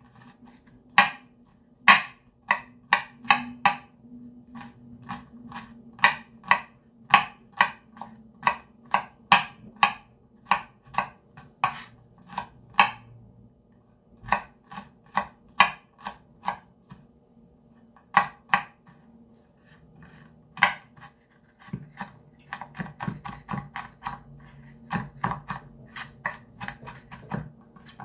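Chef's knife chopping on a bamboo cutting board: sharp knocks about one to two a second, with a few short pauses, turning into quicker, lighter strokes in the last few seconds.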